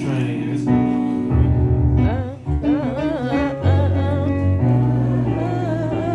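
A man singing a sliding, wavering melody over sustained chords and bass notes played on a Yamaha MO8 keyboard synthesizer, with a brief drop in the music a little over two seconds in.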